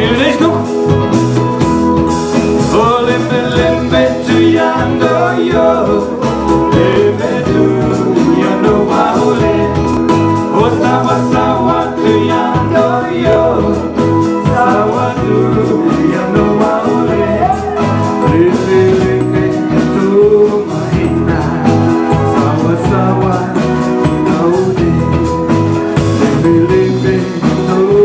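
A band playing a song with guitar and percussion under a bending lead melody, loud and continuous.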